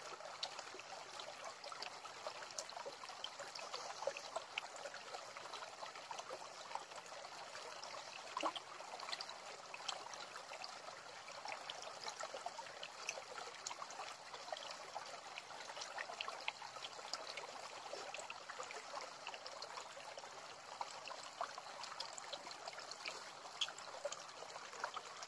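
Shallow stream trickling over rocks, a steady faint rush of water with small splashes.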